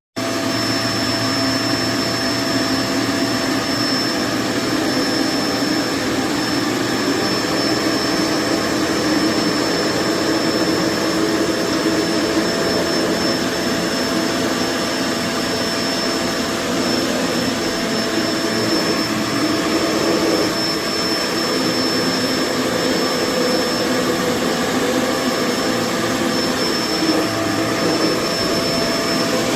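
Kenmore BU4050 bagged upright vacuum cleaner running steadily: a constant rush of air with a thin, steady high whine.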